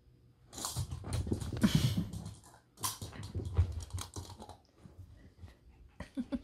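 A Morkie puppy chewing, mouthing and knocking around a small hard plastic toy: rapid clicking and clattering with scuffling, in two long spells, then a few sharp clicks near the end.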